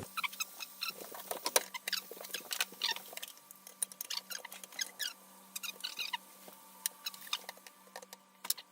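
Irregular light clicks and crackles over a faint steady hum.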